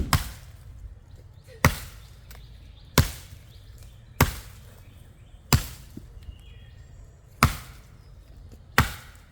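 A small tree being chopped by hand: seven sharp strikes of a blade into the wood, one about every 1.3 seconds.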